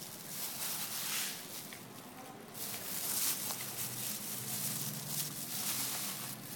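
A hand in a thin plastic glove tossing and squeezing shredded jellyfish and carrot in a plastic bowl: an irregular rustling that comes and goes, fuller in the second half.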